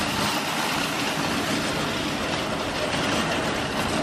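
Metal wire shopping cart rolling over parking-lot asphalt, its wheels and basket rattling steadily.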